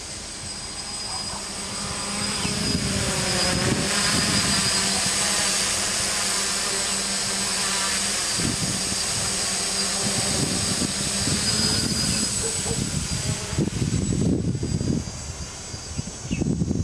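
SK S500 quadcopter's four electric motors and propellers whining in flight, the pitch rising and falling as the throttle changes. It is loudest in the middle and fainter near the end, where a low rumble comes in.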